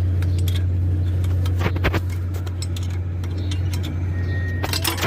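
Metal hand tools clinking against the truck's turbo bolts and fittings: a few sharp clinks about two seconds in and a cluster near the end, over a steady low hum.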